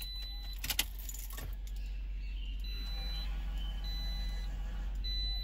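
Car keys jingle and click as the key goes into the 2012 Toyota RAV4's ignition and is turned in the first second. From about two and a half seconds in, the car's dashboard warning chime beeps, one high beep about every 1.2 seconds, three times.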